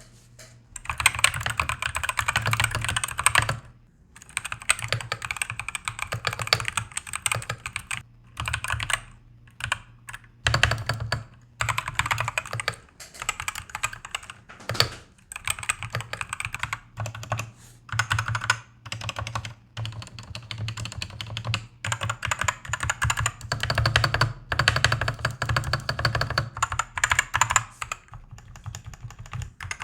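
Gamakay MK61 mechanical keyboard with Gateron Green optical switches and pudding keycaps being typed on: fast runs of key clicks in bursts of a few seconds, with short pauses between them.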